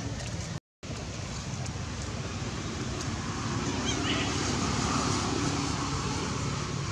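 Steady rushing wind noise on the microphone, cut off by a brief silent gap just under a second in. A faint, thin animal whimper sits under it about four to five seconds in.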